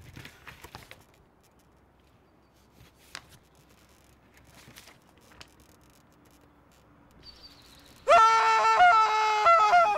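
A loud, steady honk begins about eight seconds in and runs in two or three stretches with brief dips. Before it there are several seconds of near quiet with faint paper rustling.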